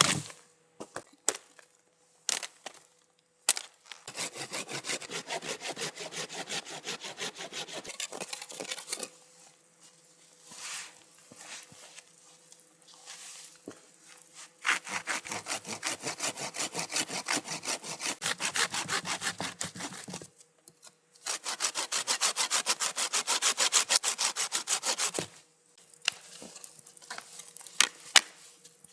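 Hand saw cutting through wood in quick back-and-forth strokes, in three long spells with short pauses between, after a few knocks at the start.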